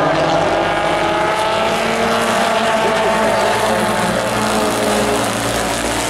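Several Pro4 race trucks running together on the oval track, a steady engine din with overlapping pitches drifting up and down as the trucks come around.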